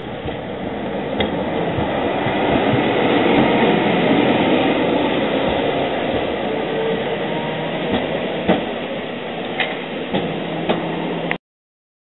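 Vintage electric tram running past on street track: a steady rumble of wheels on rail that swells as it comes closest, with several sharp knocks in the second half. The sound cuts off suddenly near the end.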